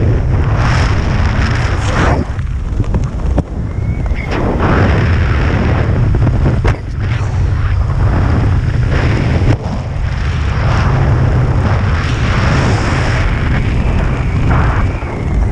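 Wind buffeting the microphone of a skydiver's head-mounted camera under an open parachute: a loud, continuous rumble that swells and eases in gusts.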